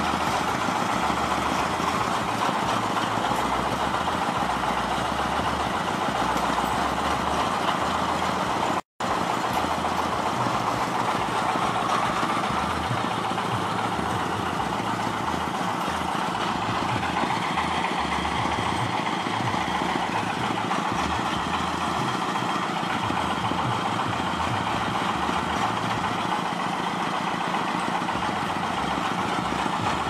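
Steady machinery noise of a mobile belt conveyor running with its engine while loading sand into a truck. The sound cuts out for a moment about nine seconds in.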